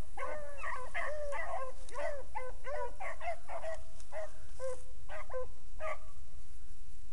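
A pack of beagles baying while running a rabbit's trail: short ringing calls in quick succession, some overlapping, stopping about six seconds in.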